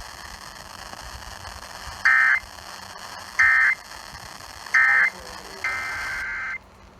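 Emergency Alert System end-of-message data bursts: three short, loud, identical digital warbles about a second and a half apart, signalling that the alert is over. A quieter steady tone of about a second follows, then it cuts off abruptly.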